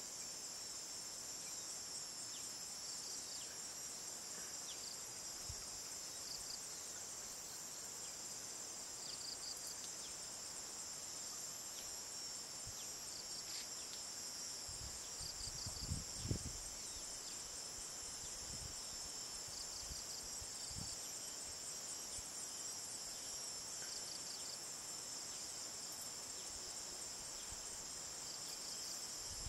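Steady high-pitched chorus of insects shrilling on and on, with short pulsed chirps repeating every few seconds. A few low thumps about halfway through are the loudest sound.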